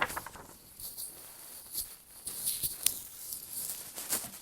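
Soft rustling and a few light clicks of paper: a picture book's pages being handled and turned.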